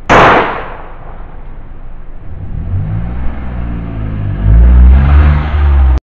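A single sharp, very loud bang right at the start, which the uploader takes for a gunshot. A car then approaches, its engine rising in pitch and growing loud as it passes close by, until the sound cuts off suddenly at the end.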